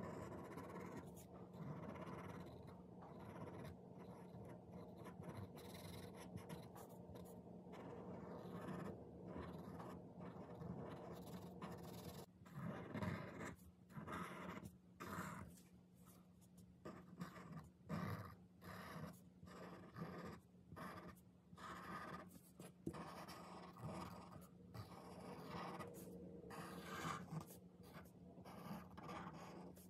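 Black Sharpie permanent marker drawing on paper in short, faint strokes as pencil lines are inked over. The strokes come more often and stronger in the second half, over a steady low hum.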